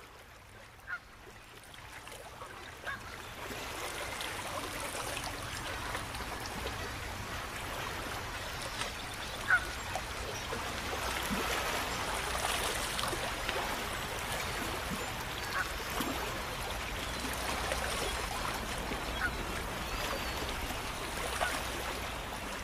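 Geese honking now and then over the steady splash of fountain water, fading in over the first few seconds.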